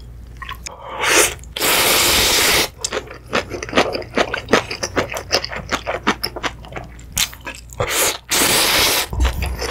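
A person slurping soupy instant ramyun noodles (Ottogi Odongtong-myeon, a thick-noodle ramyun): two long, loud slurps, about a second in and again near the end, with wet chewing between.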